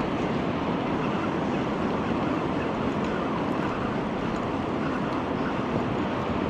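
Steady rushing of wind and sea surf on an open shoreline, an even noise that holds level throughout.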